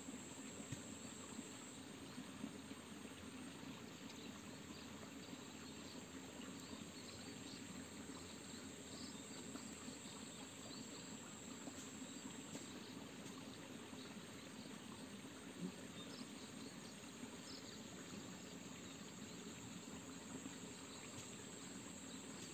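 Faint outdoor ambience: insects trilling steadily at a high pitch over a low, even background hiss, with a few soft clicks.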